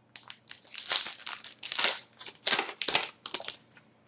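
Crinkling and rustling of a trading-card pack's foil wrapper being handled, in a run of irregular crackly bursts that stop near the end.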